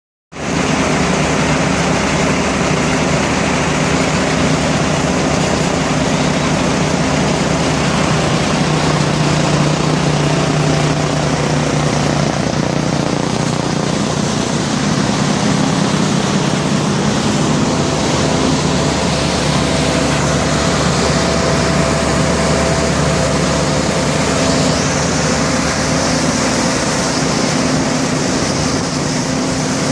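Maximus 518TR tracked screening plant running: a steady, loud mechanical drone of its diesel power unit and vibrating screen, with a few steady humming tones throughout.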